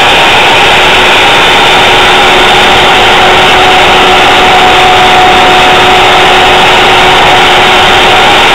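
Router spindle on a home-built Solsylva 3-axis CNC router running steadily, its bit carving a 3D relief into MDF: a constant whine of a few held tones over a rushing hiss.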